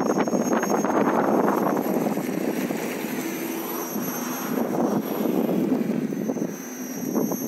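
KingSong KS16S electric unicycle riding along the pavement: a continuous rolling rumble with rattling from the tyre and the camera rig over the uneven surface, and a thin steady high whine.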